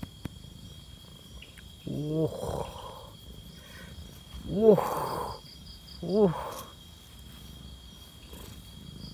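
Domestic cat purring as it is stroked, a low steady rumble, broken by three short low meows that rise and fall in pitch, about two, four and a half and six seconds in. The purring signals that the cat is content.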